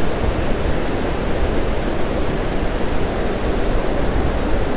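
Gulf of Mexico surf breaking and washing up the beach: a steady, unbroken wash of waves with no single crash standing out.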